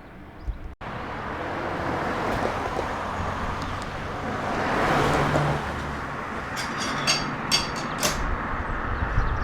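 A vehicle passing by: a steady rushing noise that swells to a peak about halfway through and then eases off, with a quick run of sharp clicks in the second half.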